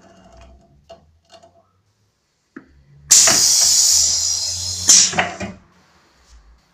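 Pneumatic cup heat-sealing machine letting out a loud hiss of compressed air for about two seconds, ending in a sharper burst as the air is released. A few light knocks come before it.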